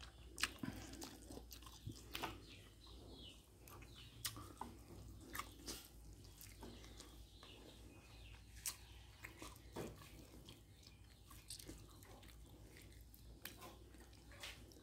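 Quiet eating sounds: a person chewing rice and fried climbing perch, with scattered light clicks of chopsticks and a metal spoon against ceramic bowls.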